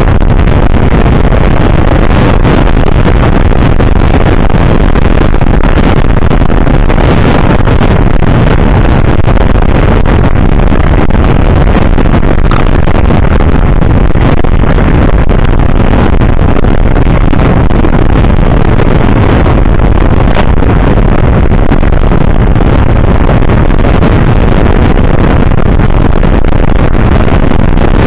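Steady rush of wind and running noise from a motor scooter riding at speed. Loud and unbroken, with no clear engine note standing out.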